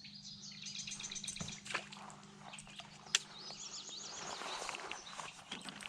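A caught largemouth bass flopping and dripping in the boat: scattered small wet taps and drips, with a sharp knock about three seconds in and a soft rustle near the end.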